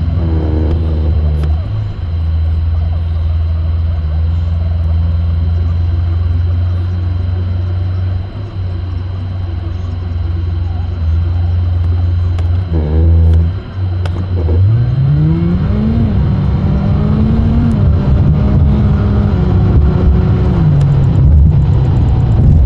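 Car driving: a steady low engine and road drone. About fourteen seconds in, the engine pitch rises smoothly as the car accelerates, then holds steady.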